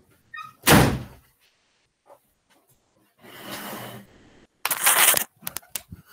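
Microphone handling noise while wired earbuds with an inline mic are being fitted: a loud thump about a second in, a stretch of rustling, then a louder scraping burst and several quick clicks near the end.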